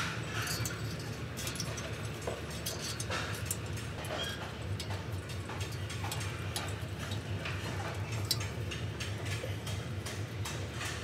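Wire hooks clicking and tapping against a metal balcony railing as they are hung on it, many short irregular ticks over a steady low rumble.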